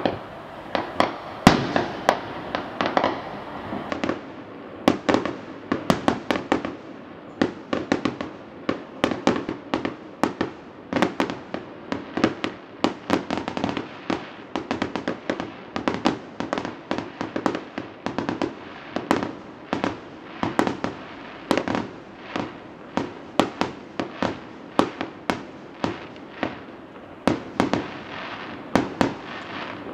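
Fireworks display: aerial shells bursting in a rapid, continuous barrage of sharp bangs, several a second.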